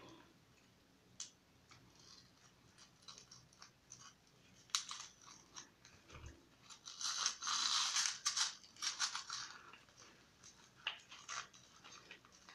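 Knife blade scraping and prying cardboard off a cast cement figure, with short scratches and some tearing of the cardboard; a longer, louder run of scraping comes about seven seconds in.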